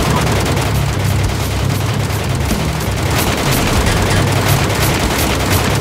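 Rapid gunfire sound effects: a continuous stream of shots that becomes regular cracks about three a second in the second half, over background music.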